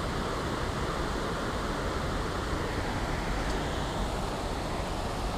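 Steady rushing outdoor noise with no distinct events.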